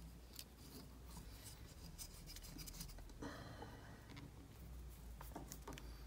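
Faint rubbing and scattered light clicks of fingers handling a jig held in a fly-tying vise, with one short rubbing sound a little after three seconds in.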